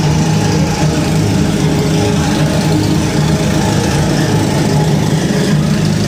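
Passenger boat's engine running steadily while underway: a loud, even drone with a constant low hum.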